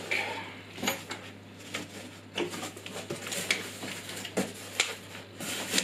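A cardboard box and its packed parts being handled: irregular knocks, taps and scrapes as the flaps and inserts are moved about.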